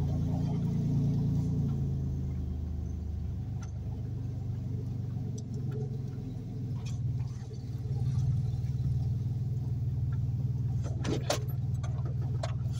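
Car engine running and tyre noise, heard from inside the cabin while the car drives along. A few sharp clicks or rattles come about eleven seconds in.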